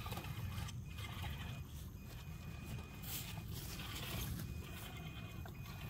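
Shallow creek water running over rocks, with a steady low rumble underneath and a faint thin high whine that comes and goes.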